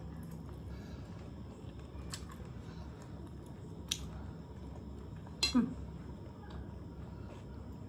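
Forks clicking and scraping on plates: a few light clicks, then a louder scrape with a falling squeak about five and a half seconds in.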